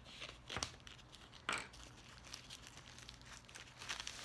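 Plastic wrapping and clear packing tape on a parcel crinkling as hands work them open, with two sharper crackles about half a second and a second and a half in.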